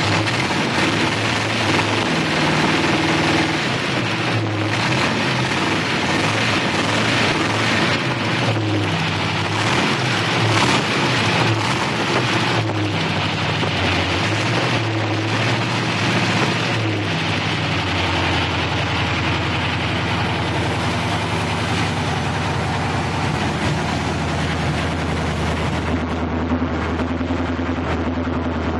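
355 cubic-inch V8 running on open headers with no mufflers, blipped up and down for the first half, then settling to a steady idle about two-thirds of the way through.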